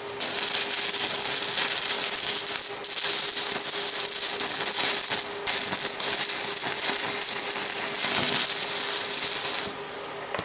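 Arc welder running a weld bead, a steady crackling sizzle that breaks off briefly twice and stops near the end. The arc sputters a lot because the welder's ground is not working right.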